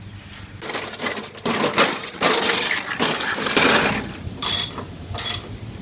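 Ratchet wrench turning a spark plug out of a lawnmower's aluminium cylinder head, clicking and scraping in irregular bursts. The plug is binding in stripped threads and takes a lot of force.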